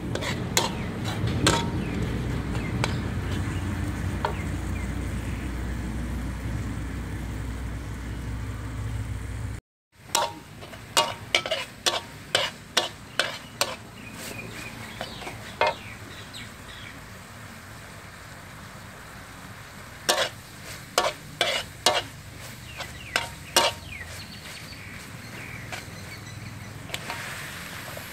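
Metal spatula scraping and clinking against a steel wok as pork is stir-fried, over a low sizzle, in bunches of quick strokes. A low steady rumble lies under the first part. Near the end there is a brief denser rustle as sliced cabbage is tipped in.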